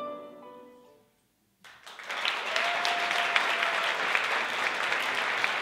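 The last chiming notes of the routine's music fade out, then after a brief silence an audience breaks into sustained applause. For about a second in the middle, someone in the crowd holds a single high note over the clapping.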